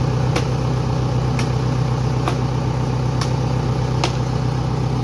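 JCB 3DX backhoe loader's diesel engine idling steadily, with sharp chopping strikes about once a second, five in all, as a tree branch is hacked by hand.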